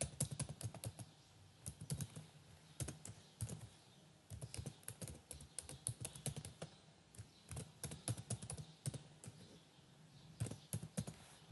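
Typing on a computer keyboard, quick runs of keystrokes with short pauses between, as an email address and then a password are entered.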